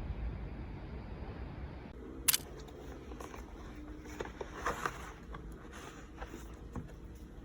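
Low rumbling room noise, then about two seconds in a single sharp click, followed by scattered light taps and handling noises.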